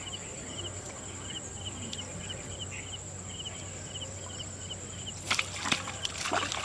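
Steady high insect buzz with a short chirp repeating every half second or so. About five seconds in, a sudden burst of splashing and thrashing as a hooked fish is jerked out of the pond on a pole and line.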